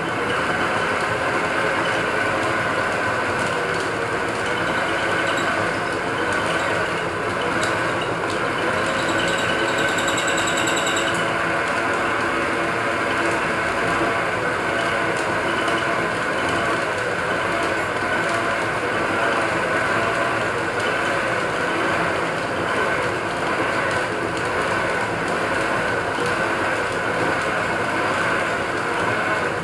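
Small metal lathe running under power, its motor and gear drive whirring steadily as the chuck spins. A brief high-pitched whine comes in about ten seconds in.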